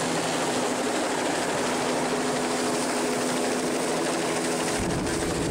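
Helicopter flying close overhead as it comes in over an oil platform's helideck: steady rotor and turbine noise, with a steady hum that grows about two seconds in and a deeper rumble near the end.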